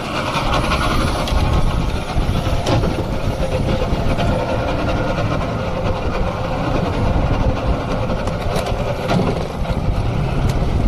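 Outboard motor of a small fishing boat running under way, with a steady rush of wind and water; it gets louder right at the start as the boat moves off.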